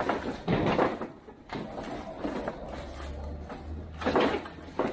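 Forklift lifting a shrink-wrapped wooden pallet of stacked metal chairs off a lorry's timber deck: the pallet and chairs knock and scrape, once about half a second in and again about four seconds in. The forklift's low steady hum comes in about three seconds in.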